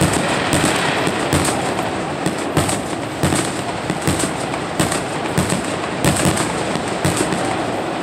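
Aerial firework shells bursting in quick succession, sharp bangs about twice a second over a steady rumble and crackle of the display.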